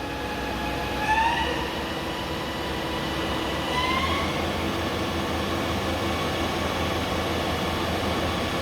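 Doosan PUMA 400LB CNC lathe's spindle drive running up in speed in steps: a whine that rises in pitch about a second in and again about four seconds in, holding steady between and after the steps, over a low hum.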